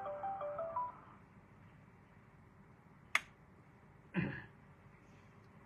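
The last few plucked guitar notes of an intro tune, stepping upward in pitch, end within the first second. Then there is quiet room tone, broken by one sharp click about three seconds in and a short muffled noise about a second later.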